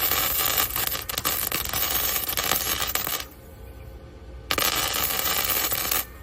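Electric arc welding on steel: the arc crackles and sizzles for about three seconds, stops, then strikes again for a second and a half.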